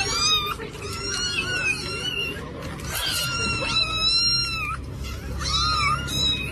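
Cat meowing: four long, high-pitched meows, two of them drawn out for more than a second.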